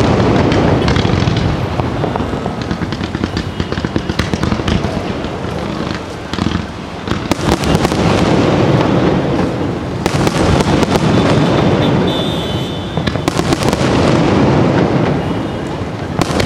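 Fireworks display: aerial shells and ground fountains going off in a dense, unbroken run of bangs and crackling, easing briefly about six seconds in and building again around ten seconds.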